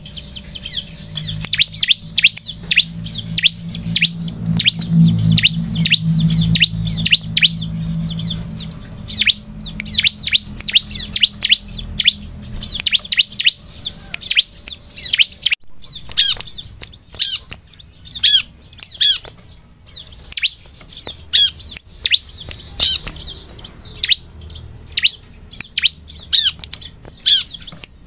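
Bar-winged prinia (ciblek) calling: a fast, continuous run of short, sharp, downward-sweeping chirps, about three or four a second, broken by a brief pause about halfway through. A low hum sits under the first half.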